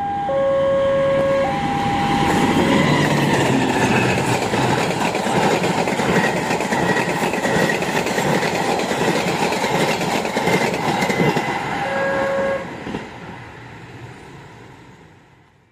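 Diesel locomotive horn sounding two notes in turn, a lower one then a higher one, followed by a passenger train passing close at speed with a steady rush and clatter of wheels on the rails. A short low horn blast comes about twelve seconds in, and then the sound fades away as the train moves off.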